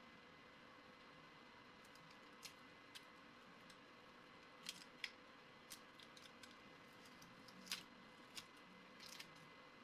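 Near silence: faint steady hiss with about a dozen small, irregular clicks and ticks scattered through it.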